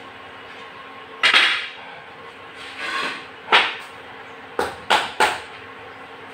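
Wooden rolling pin and plates knocking and clattering on a hard floor while dough is handled: about six sharp knocks, three of them in quick succession near the end, over a steady low hum.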